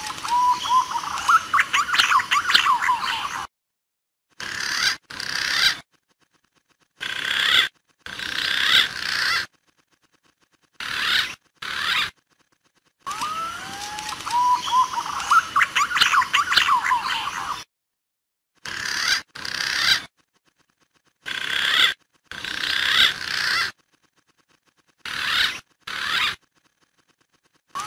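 Looped recording of green pigeon (punai) calls played as a bird lure. It has rising whistled notes followed by quick, squeaky, rasping notes, broken by abrupt silent gaps, and the same sequence repeats about 13 seconds later.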